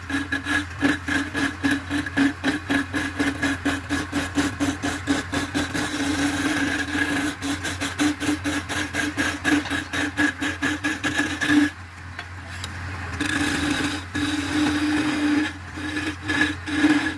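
Wood lathe motor humming steadily while a flat chisel cuts a spinning wooden spindle, the cutting noise pulsing rapidly, about five times a second. About two-thirds of the way through the cutting stops for a second or so, leaving only the motor hum, then starts again.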